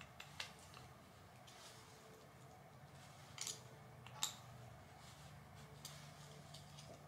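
Near silence with a few faint, sharp clicks, the sharpest about four seconds in. They come from a hex driver and RC crawler chassis parts being handled as a chassis spacer is turned straight.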